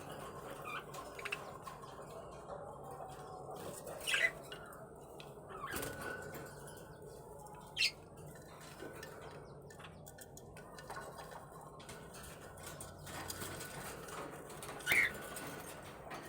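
Pet parrots giving a few short, sharp chirps, the loudest about four seconds in, about eight seconds in and near the end, over faint steady background noise.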